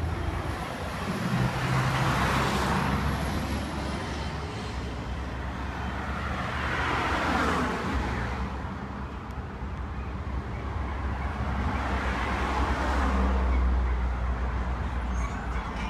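Road traffic passing: a Scania diesel bus drives by and pulls away, and cars pass close one after another. Over a low steady engine hum, the tyre and engine noise swells and fades three times, each time a vehicle goes past.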